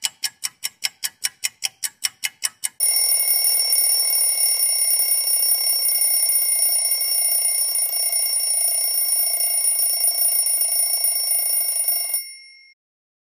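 Quick, even ticking, about six ticks a second, then a bell ringing rapidly and continuously for about nine seconds, like an alarm clock going off. The ringing stops abruptly and the bell's tones ring on for a moment.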